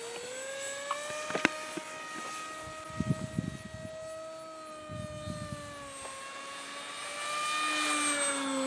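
Small electric RC plane in flight: its Turnigy 2200 KV brushless motor and 6x4 propeller whine overhead as a steady buzzy tone, its pitch drifting gently up and down. It grows louder towards the end, with a couple of sharp clicks about a second and a half in.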